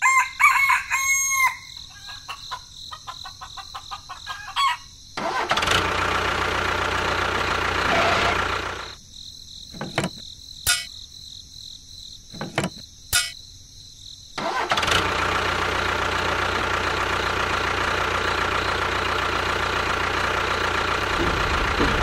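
Small electric motor of a miniature DIY tractor running in spells with clicks between them, then running steadily from about fifteen seconds on. A short crow-like call at the very start.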